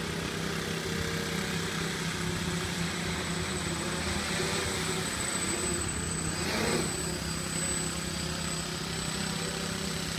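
X8 octocopter's eight brushless 2212 motors and propellers running in flight, a steady multi-tone buzz. It swells briefly about six and a half seconds in, its pitch rising and then falling.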